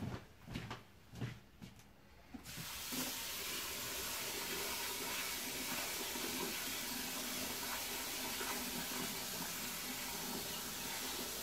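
A few light knocks, then about two and a half seconds in a tap starts running steadily into a bowl of grated raw potato, filling it with water to rinse out the starch.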